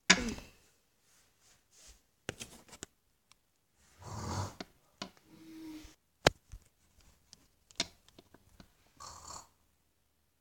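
A person's snoring: one snore about four seconds in, followed by a short whistling breath out. Scattered clicks and knocks run throughout, and a sharp noise at the very start is the loudest thing.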